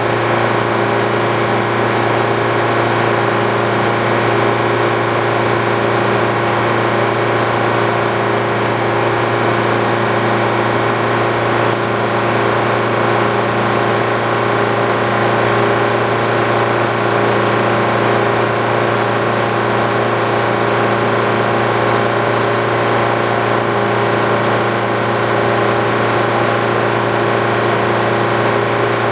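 Old Frick sawmill machinery running steadily: a constant mechanical hum made of several steady tones, with no change in pitch or level.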